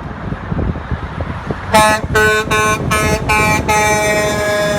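Truck horn sounding a two-note chord in five short blasts in quick succession, then held in one long blast, over a low road rumble.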